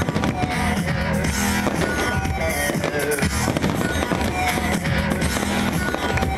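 Music with guitar and a steady beat, mixed with the bangs and crackling of fireworks going off.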